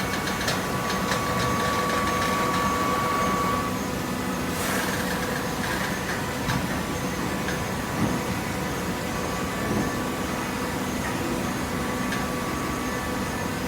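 Gasoline-engine-driven hydraulic baler running steadily, a mechanical hum with a steady whine; the level drops slightly about four seconds in, with a brief clatter just after.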